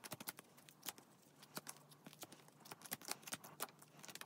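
Faint scattered clicks and taps of plastic-sleeved photocards being handled, shuffled and set down in piles on a binder page.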